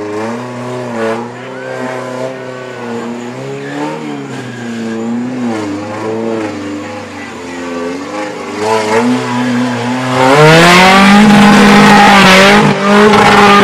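Off-road Jeep's engine revving up and down as it churns through a mud pit. About ten seconds in it is revved hard and held at high revs, much louder, then drops off at the end.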